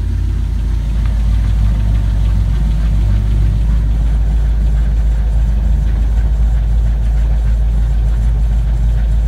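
4.8 L V8 idling at about 800 rpm in third gear, turning the T-5 gearbox, driveshaft and rear axle with the rear wheels off the ground: a steady low rumble with a grinding, not-quite-roaring noise from the differential, which the owner takes for something like a bad axle bearing.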